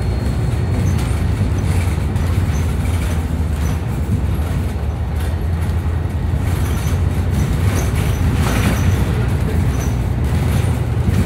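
Steady low rumble of a city transit bus's engine and road noise, heard from inside the bus while it drives. A brief rush of higher-pitched noise comes about eight seconds in.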